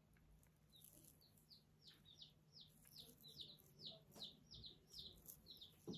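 Faint bird chirping: a run of short, falling chirps, about three a second, growing somewhat louder toward the end.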